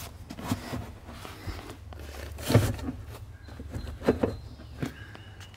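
A few knocks and clunks from an aftermarket racing seat and its metal bracket being set down onto the car's floor mounts, the loudest about two and a half seconds in, over a low steady rumble.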